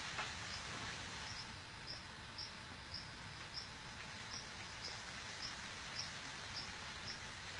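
An animal chirping: a short, high chirp repeated about twice a second over a steady background hiss.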